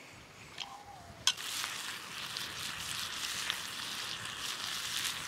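Food sizzling in a frying pan set over an open wood campfire, with the fire's crackling pops through it. The sizzle starts abruptly after a sharp click about a second in and is steady from there on.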